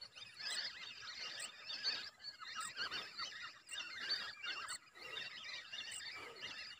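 Whistling ducks (belibis) calling, a dense chorus of overlapping high twittering whistles, with a faint tick about twice a second behind it.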